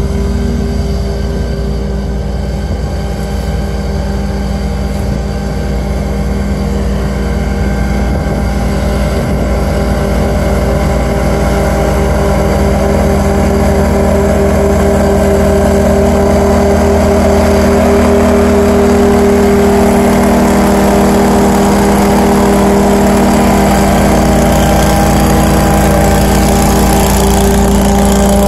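Walker C19 zero-turn riding mower's engine running steadily. It grows louder as the mower drives up close.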